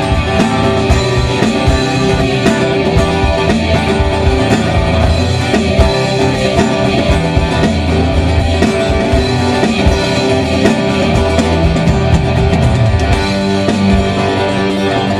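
Live rock band playing, with electric and acoustic guitars strumming together over a steady beat, loud and continuous.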